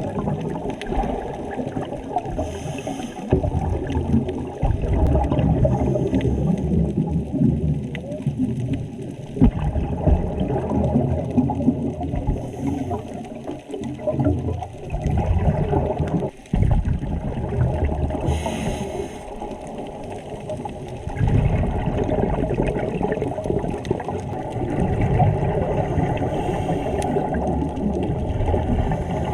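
Humpback whale song heard underwater: low, drawn-out calls over a dense underwater rumble, with faint short hisses now and then.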